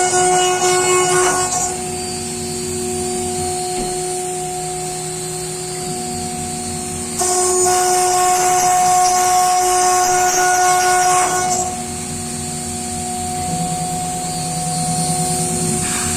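CNC router cutting wood: a steady high spindle whine, louder and harsher for a second or two at the start and again from about seven to eleven seconds in, with quieter stretches between.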